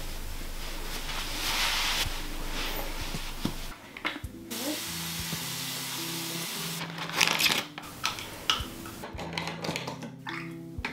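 Soft background music of held, slowly changing notes. A steady hiss fills the first few seconds, and a few brief handling noises come later.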